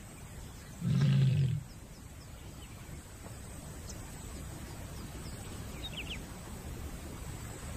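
A lioness gives one deep call about a second in, lasting under a second. It is the call of a lioness in heat advertising herself to males.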